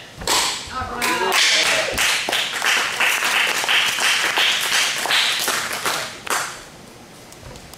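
A sharp smack of a punch landing on a hand-held target pad just after the start and a short shout about a second in. Then a small audience claps for about five seconds, stopping near the end.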